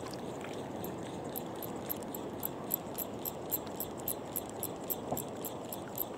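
A small Fugu Eiji 1000 spinning reel is being cranked to retrieve a lure, giving a quick, fairly even ticking at about four ticks a second. Behind it is a steady rush of wind and surf.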